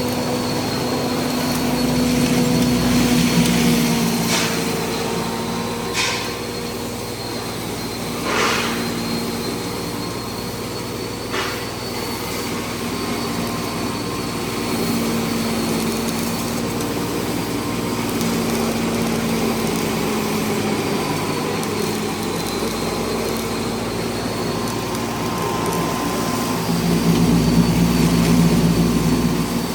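Neem seed crusher (grinder machine) running steadily with a motor hum and a high whine. There are four short rushing bursts in the first dozen seconds, and the machine grows louder near the end.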